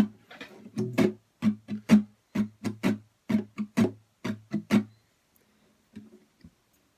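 Acoustic guitar strummed in a quick run of chords, about three strokes a second, stopping about five seconds in, followed by a couple of soft notes.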